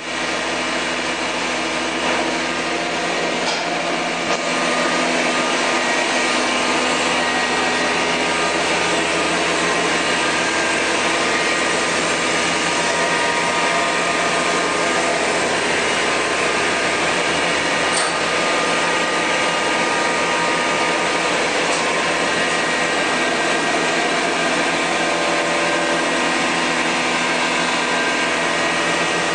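Steady mechanical whir and hum of a Mazak 510C vertical machining center powered up and running, with several constant tones over an even rushing noise. It rises a little in level about four seconds in.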